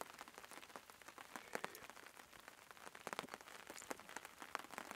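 Very light rain shower: faint, scattered raindrops falling as irregular ticks.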